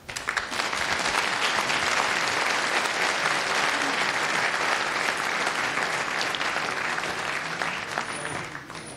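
Audience applauding. The applause starts all at once and tapers off near the end.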